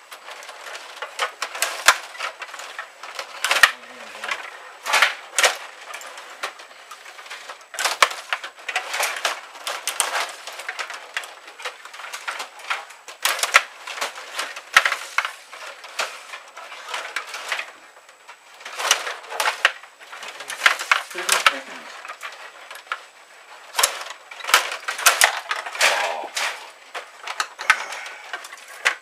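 Stiga rod hockey game in play: a fast, irregular clatter of hard plastic clicks and knocks as the rods are pushed and twisted and the plastic players, puck and boards strike one another.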